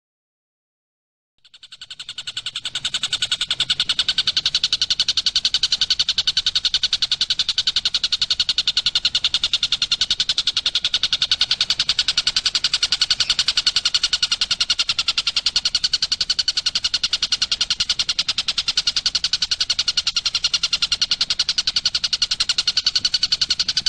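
A songbird's rapid, unbroken trill of quick even notes, fading in after a moment of silence and running steadily for about twenty seconds.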